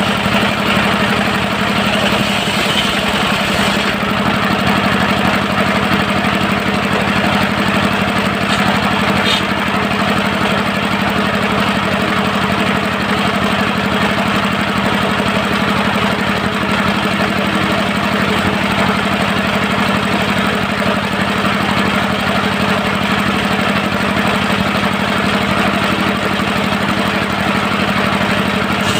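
Diesel engine driving a circular-blade sawmill, running steadily at an even, rapid chug.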